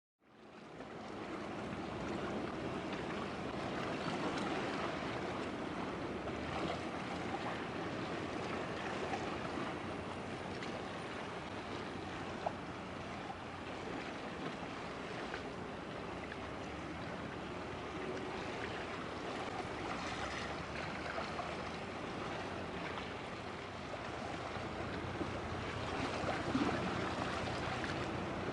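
Steady rush of wind and water with the low drone of a passing container ship, fading in over the first second or so.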